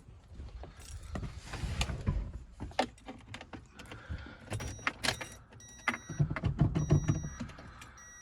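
Keys jangling and clicks and knocks of someone getting into a 2004 Toyota Echo, then the car's electronic warning chime beeping steadily about once a second from about halfway through.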